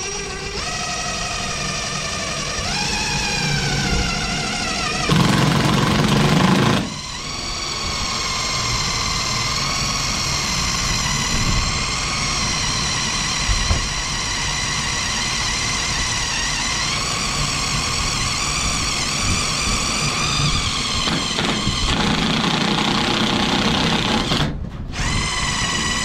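Cordless drill boring through a sheet-metal side piece into the wagon floor. The motor whines steadily under load, its pitch rising and falling as the bit bites. It gets louder and coarser for a couple of seconds about five seconds in, and stops briefly near the end.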